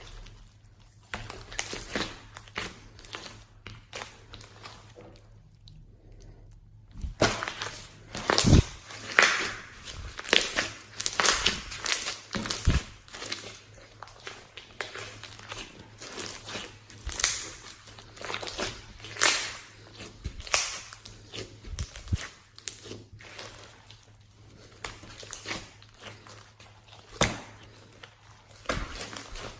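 Hands squishing and poking slime, making irregular crackles, clicks and pops of varying loudness, with a short lull about six seconds in.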